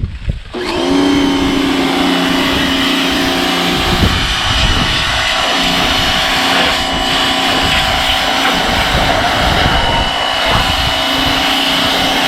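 Small electric pressure washer kicking on about half a second in as the trigger is pulled, then its motor and pump running steadily with a whine over the hiss of water spraying through a 40-degree nozzle.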